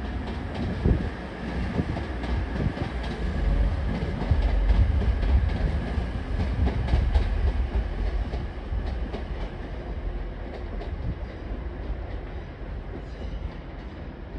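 Train passing: a low rumble that grows loudest about four to seven seconds in and then fades, with a run of sharp clicks as the wheels cross the rail joints.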